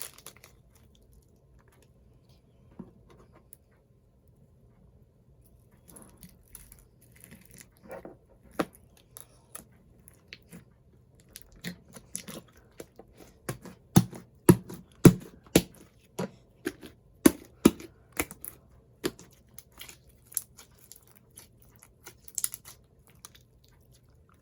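Thick slime being squished and poked by hand, giving irregular sticky pops and clicks. It starts quietly about six seconds in and is loudest about midway through.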